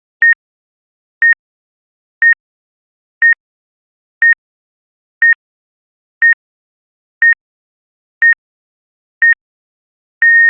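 Electronic beeps, all one high pitch: ten short beeps a second apart, then a longer beep near the end, like a countdown reaching zero.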